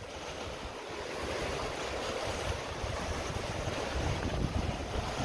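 Small waves washing against a rocky shore, with wind rumbling on the microphone.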